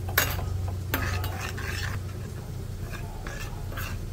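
A spoon stirring and scraping in a small bowl, mixing ground spices with water into a paste: several irregular scrapes and clinks.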